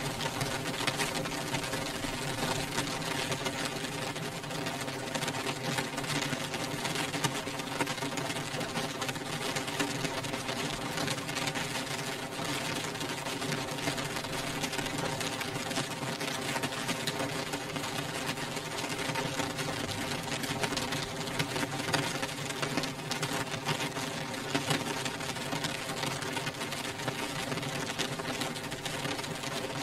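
Rain beating on window glass: a dense, steady patter of many small drop ticks on the pane, with a steady hum beneath it.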